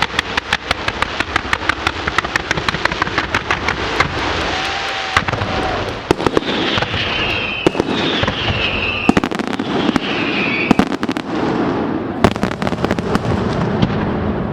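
Fireworks going off: a fast rolling string of sharp bangs, about six a second, for the first four seconds, then a steady rumble broken by scattered louder blasts, with several whistling sounds in the middle.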